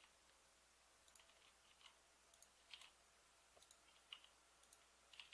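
Near silence with a handful of faint, irregularly spaced clicks from a computer mouse and keyboard.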